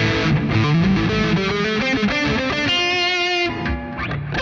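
Electric guitar through the NUX MG-300's amp simulation set for high-gain distortion, with no distortion effect in the chain: a quick run of notes, one note held about three seconds in, then a short break before more playing.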